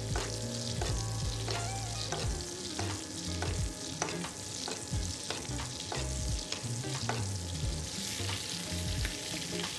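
Beef tenderloin sizzling in foaming butter and oil in a cast-iron pan while it is basted, with a metal spoon scraping and clinking against the pan many times. A low rumble runs underneath.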